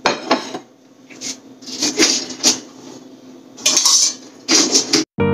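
Metal spoon scraping and clinking against dishes in a run of short, uneven bursts, cutting off suddenly near the end.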